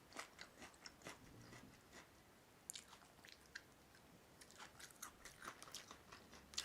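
Quiet, irregular small clicks and crunches close to the microphone, a few a second.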